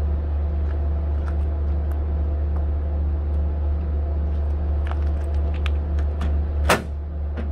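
A steady low engine hum with a faint regular pulse in it, under scattered light clicks and taps of hands working the truck's rear light bezels; one sharp, louder knock comes near the end.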